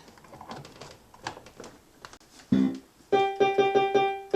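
Concertmate 980 electronic keyboard playing after a few faint clicks: one note about two and a half seconds in, then the same note struck quickly, about five times a second. The keyboard is sounding normally on its polarity-corrected power adapter.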